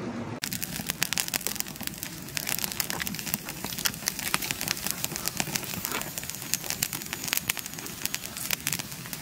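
Wood fire crackling and popping, with fresh green conifer branches burning on top: dense, irregular snaps over a steady hiss. A brief rush of wind is heard before the crackling begins, less than half a second in.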